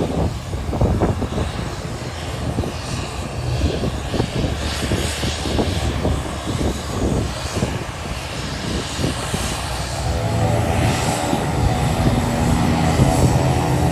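Propeller airplane engine approaching and growing louder, its steady droning tone coming through clearly about ten seconds in, over the gusty rumble of wind buffeting the microphone.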